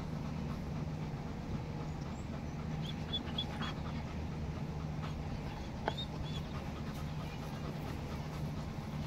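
A dog panting steadily close by, with a few short high squeaks and one sharp click about six seconds in.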